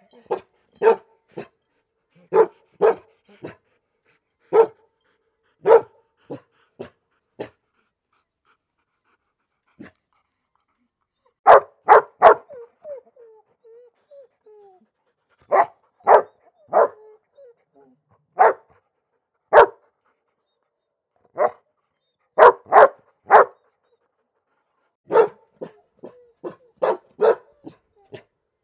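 Dog barking in short, sharp single and double barks in irregular clusters, with a pause of a few seconds about a third of the way in. Soft whimpering can be heard between the barks around the middle.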